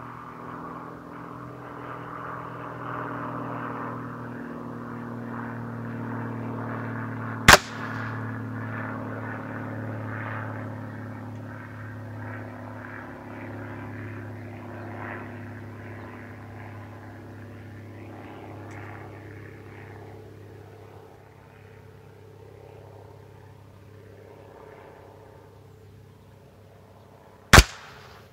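Two shots from a Seneca Recluse .357 big bore air rifle firing 95-grain slugs on partial power, each a single sharp crack, about 20 seconds apart. A steady engine drone runs underneath and fades away in the second half.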